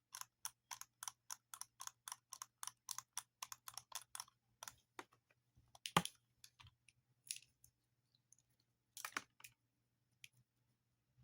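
Buttons being pressed and clicked in quick succession, about four clicks a second, then slowing to scattered single clicks after about four and a half seconds, the loudest about six seconds in.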